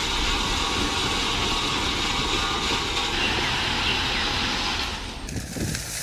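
Heavy dump truck running with a steady rumble while loose gravel is loaded into its tipper body, a dense rushing noise over the engine. The noise eases about five seconds in.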